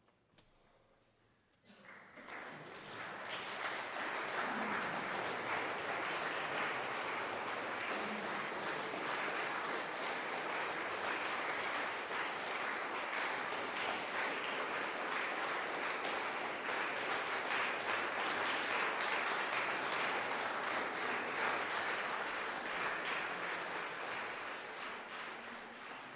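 Audience applauding: after a brief silence the clapping starts suddenly about two seconds in, holds steady, and eases off slightly near the end.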